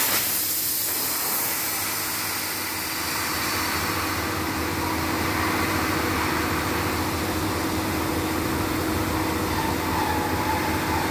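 Compressed air hissing out of a locomotive brake cylinder as it is released on air test. It starts suddenly with a sharp burst and carries on as a steady hiss while the cylinder exhausts.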